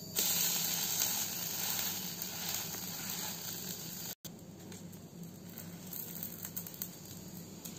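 Dosa batter sizzling on a hot iron tawa: a loud hiss starts as the batter is poured and slowly eases off. After a brief cut about four seconds in, the cooking dosa keeps sizzling more quietly, with a few small scrapes and clicks.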